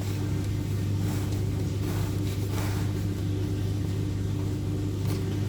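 A steady low hum with a faint constant tone, from an unseen appliance or machine running in the room, with soft faint squishing of hands kneading dough in a bowl.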